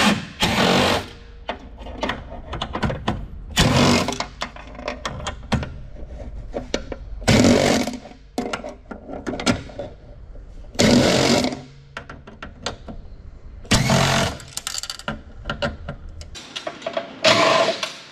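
Cordless driver backing quarter-inch hex-head screws out of the metal plates of a telecom equipment frame, in about seven short bursts three to four seconds apart.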